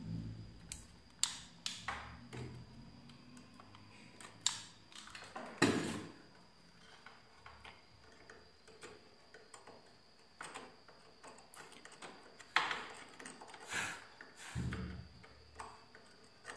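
Scattered small clicks, taps and brief scrapes of hands and a metal soldering tool working on a circuit board and capacitor leads during soldering, with a faint steady high whine underneath.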